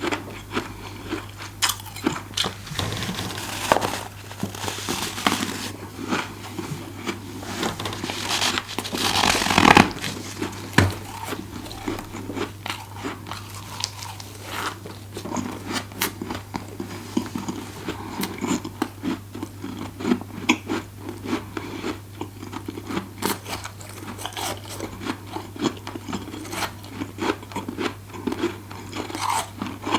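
Close-up biting and chewing of powdery deep-freezer frost, a dense run of crisp crunches and crackles, with heavier bites a few seconds in and about ten seconds in. A steady low hum runs underneath.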